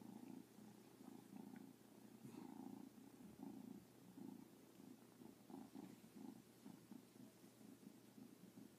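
Calico cat purring faintly in uneven pulses.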